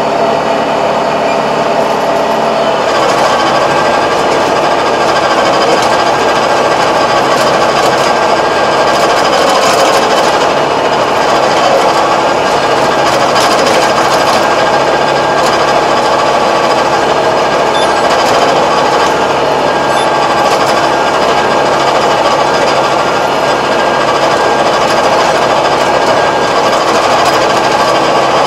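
Tractor engine running under load while driving a Kobashi rotary tiller through soil: a steady, dense, rattling clatter of the tiller's blades churning the ground. It thickens about three seconds in.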